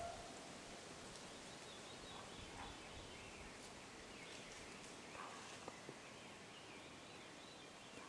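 Quiet woodland ambience with faint, distant birdsong.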